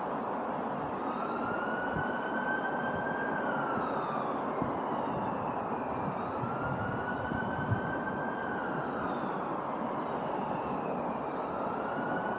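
Emergency vehicle siren in a slow wail, rising, holding and falling about three times, over the steady hiss of rain.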